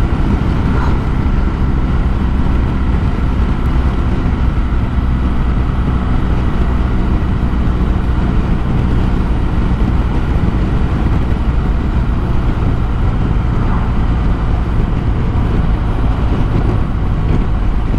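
Motorcycle engine running steadily at a constant speed while riding, under a steady rush of wind and road noise.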